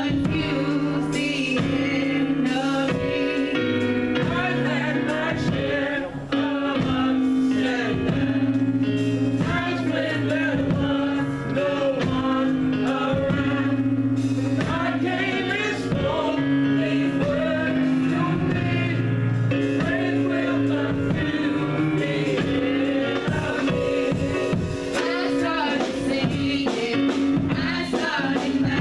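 Gospel music: a choir of men and women singing over instrumental backing with a steady beat.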